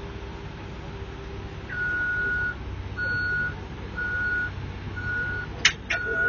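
Backup alarm on heavy equipment beeping in a single steady tone about once a second, starting a couple of seconds in, over a diesel engine running. Two sharp clicks come near the end.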